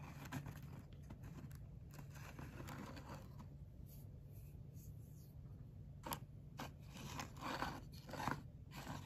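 Faint scraping and rustling as a small plastic model container is handled and moved about on a cutting mat, in short bursts of about a second, busiest and loudest in the last three seconds. A low steady hum runs underneath.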